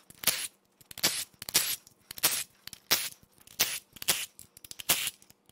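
Cordless power driver run in many short trigger bursts, spinning out the oil pan bolts of a BMW B38 1.5-litre three-cylinder engine one after another.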